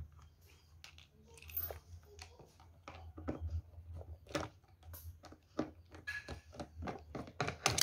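A Phillips screwdriver working out the screws of the plastic battery hold-down clamp in an electric knapsack sprayer, giving small irregular clicks and scrapes. A low steady hum runs underneath.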